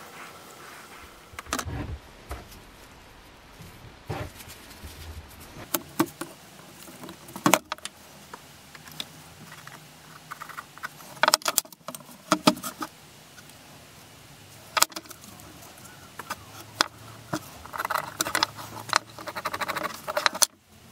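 Workbench handling noise: irregular sharp clicks and knocks as a steel axe head, digital calipers and other hand tools are picked up and set down, with a quick run of small scratchy ticks near the end as a pencil marks a piece of wood.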